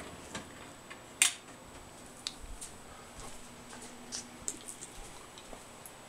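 Scattered faint clicks and small knocks of handling, with one sharper knock about a second in, over a quiet room and a faint steady hum in the middle.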